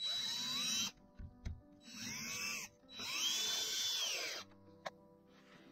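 Cordless drill run in three short bursts, the motor whining up to speed and winding down each time.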